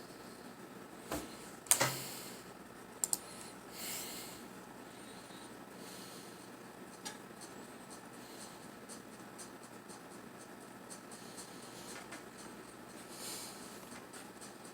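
Light handling noises: a few sharp clicks and knocks in the first three seconds, including a quick double click, then soft rustling and small taps in a quiet room.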